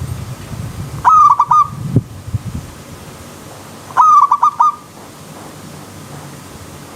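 Zebra dove (perkutut) singing twice, about a second in and again about four seconds in. Each song is a quick run of about five coos. A steady background of running stream water sits underneath.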